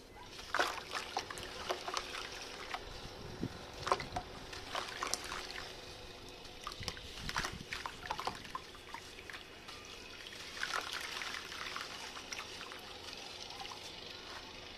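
Red sand crumbling into water: a wet trickling hiss with many small crackles and clicks scattered throughout.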